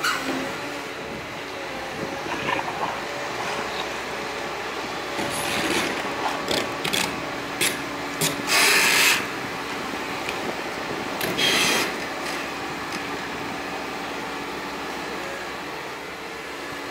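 Liebherr R926 compact excavator's diesel engine running steadily under hydraulic load. Several harsh scrapes of steel grinding on stony ground come in the middle, the loudest about eight and a half seconds in.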